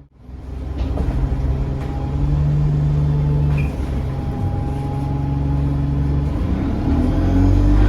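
Diesel bus engine running as the bus drives along, heard from on board; after a brief dropout at the start it comes back and gets louder about a second in, and louder again near the end as the bus pulls harder.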